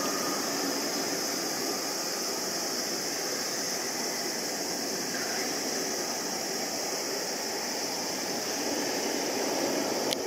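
Jet noise from an Embraer regional jet's twin turbofan engines climbing out after takeoff: a steady, even rush with a constant high-pitched hiss over it.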